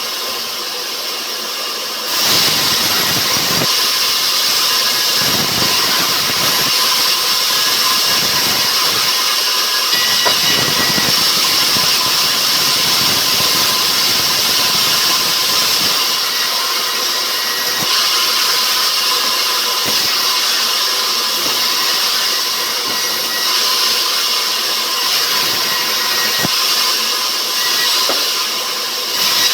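Sawmill saw cutting a rubberwood log: a loud, steady whine and hiss that rises in level about two seconds in, as the blade goes into the wood, and holds through the cut.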